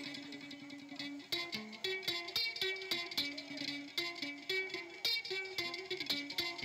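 Background music led by a plucked guitar, its notes changing about every half-second.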